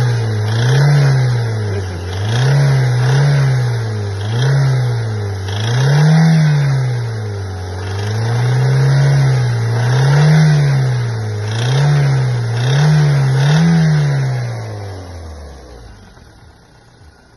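Toyota Wish's 1ZZ four-cylinder petrol engine revved repeatedly in short throttle blips from idle, about nine rises and falls, then dying away near the end. Through it runs a crackling rattle, which the owner also hears constantly under load on the highway and cannot yet explain.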